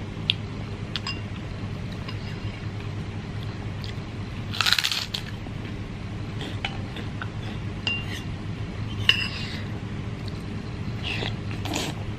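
Metal spoon and chopsticks clinking against a ceramic bowl while eating instant noodle soup, with a longer noisy slurp of noodles about halfway through and another near the end.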